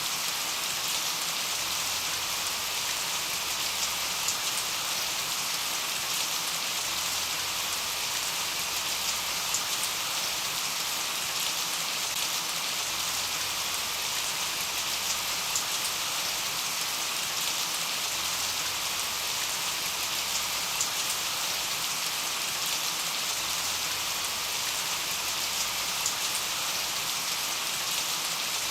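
Steady rain falling, an even hiss with faint scattered ticks of drops striking.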